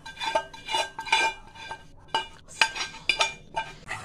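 Metal utensil clinking and knocking against a stainless steel mixing bowl, about ten irregular knocks, each with a short metallic ring, with a pause about halfway through, as the fried onion mixture is scraped into the bowl.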